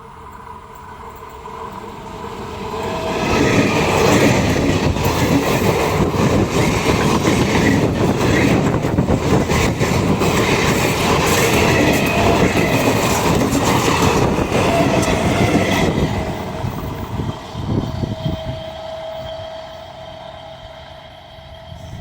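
A train passing at speed, its wheels clattering rapidly over the rail joints. It builds over the first few seconds, runs loud for about twelve seconds, then fades away.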